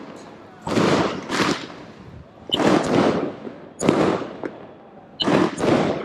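A 64-shot firework cake firing: about six sharp bangs, roughly in pairs, each trailing off over a fraction of a second.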